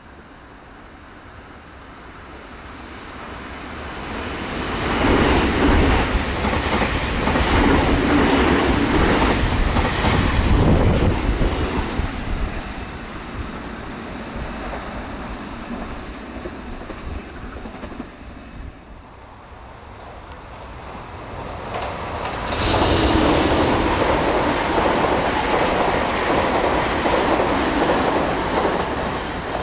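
Two Nankai express trains running through a station at speed, one after the other: first an 8000 series at about 90 km/h, wheels clattering over the rail joints as it builds up, passes and fades away. About twenty seconds in a 9000 series follows, loud again near the end.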